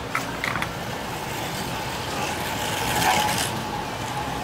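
Electric slot car motors whirring on a raceway track: a steady whine over a rushing noise, swelling briefly about three seconds in.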